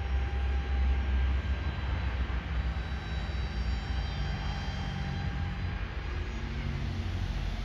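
RC paramotor's propeller motor whining at a steady high pitch in the distance, over a low rumble of wind on the microphone.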